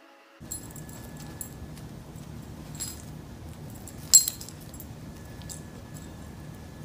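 A cat and a small dog play-fighting on pavement, with light jingling and clinks from a collar tag over a steady background hiss. Scattered clicks through the scuffle, the loudest a sharp clink about four seconds in.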